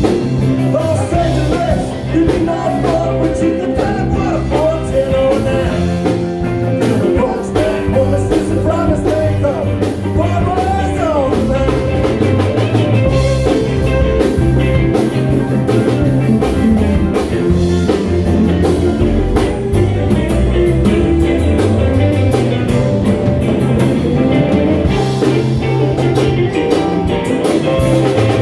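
A live band playing a bluesy rock number: drum kit, bass and electric guitar, loud and steady.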